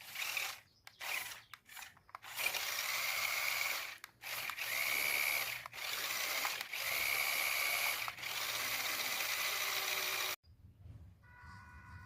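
RC truck's electric motor and gear drivetrain running in stop-start bursts of throttle: a grinding, rattling mechanical noise with a high whine that holds steady during each longer run. It cuts off suddenly near the end, leaving faint steady tones.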